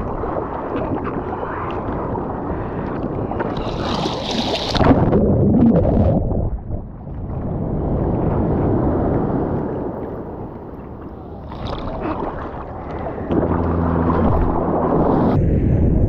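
Seawater sloshing and splashing right at the microphone as a bodyboarder paddles through the surf. There is a loud wash of water about five seconds in, and a louder rush near the end as a wave breaks over the rider.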